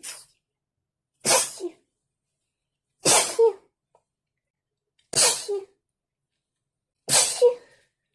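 A person sneezing four times in a row, about two seconds apart, in a sneezing fit from a cold.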